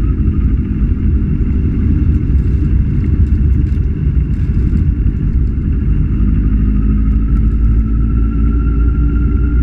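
Motorcycle engine running at a steady cruise under a heavy low rumble, with a thin whine that dips slightly about a second in and climbs back a few seconds later.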